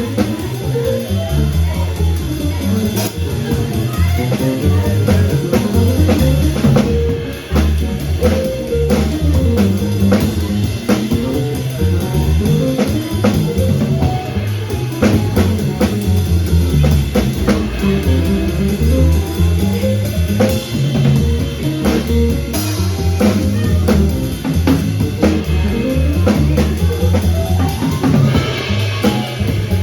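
Small jazz group of drums, saxophone, piano and bass playing live, with the drum kit prominent: frequent drum and cymbal strokes over the bass and piano.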